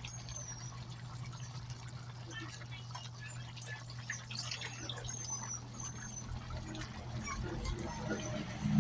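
Chicken curry in coconut milk simmering in a wok, with small bubbling pops over a steady low hum.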